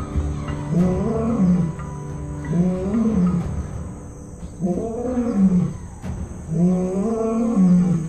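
Lion roaring in a series of about four long moaning calls, each about a second long, rising and then falling in pitch, over background music with a steady low drone.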